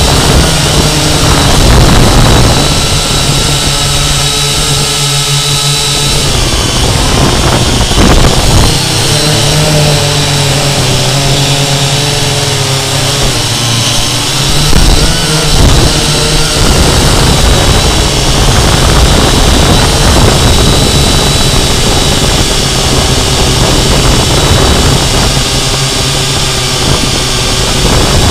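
Syma X8C quadcopter's four brushed motors and propellers whirring loud and close, the pitch shifting several times as the throttle changes.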